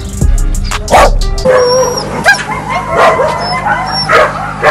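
Dogs in shelter kennels barking roughly once a second from about a second and a half in, with sliding, high yelps between the barks, over background music.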